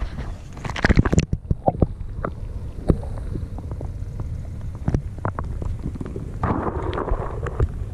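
Wind buffeting the microphone, a low rumble, with scattered sharp clicks and knocks and a brief murmur of voices near the end.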